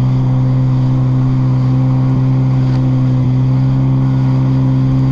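Jet ski engine running at a steady cruising speed, a constant low drone that holds one pitch without revving.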